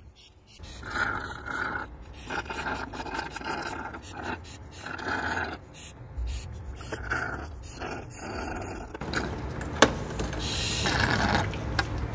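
Fluid evacuator sucking spilled engine coolant up through its hose, gurgling in irregular spurts as air and liquid are drawn in together. A sharp click comes about ten seconds in.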